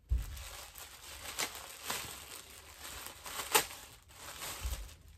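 Plastic bags and packaging rustling and crinkling as hands dig through black plastic garbage bags, with a few sharp crackles, the sharpest about three and a half seconds in.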